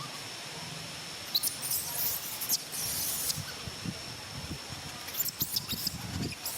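Short bouts of rustling and scratching, as of animals moving over dry leaves and ground, starting about a second and a half in, over a steady thin high-pitched tone.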